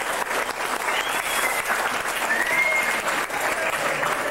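A roomful of people applauding, steady clapping with a few high calls or whoops rising over it.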